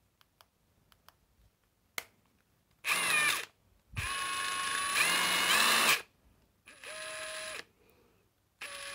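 Parkside Performance PDSSAP 20-LI A1 brushless impact driver running free with no load in four short trigger pulls at different speeds, its motor whine rising in pitch as it spins up. The second and longest run steps up to a higher speed partway through, and the third is slower and quieter. A few light clicks come first.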